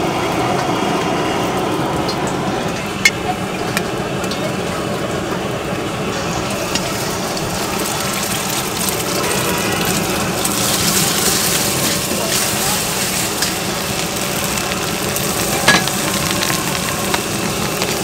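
Hot oil and an egg sizzling in a carbon-steel wok over a gas burner, with a metal ladle knocking against the wok a few times. About a third of the way in the sizzle grows louder and hissier.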